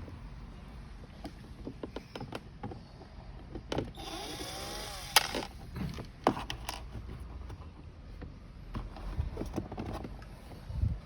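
Scattered clicks and knocks of plastic parts and tools being handled while a kids' ride-on car is assembled. About four seconds in there is a brief whirr that ends in a sharp click, and a few dull thumps come near the end.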